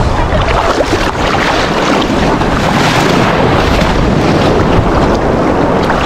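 Sea water sloshing and splashing around a camera held at the surface in the shallow surf, with heavy wind buffeting on the microphone. A loud, steady rush with a deep rumble and no pauses.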